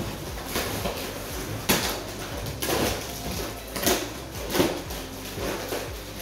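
Plastic wrapping on a new mattress rustling and crinkling as it is handled and pulled open, with several sharper crackles.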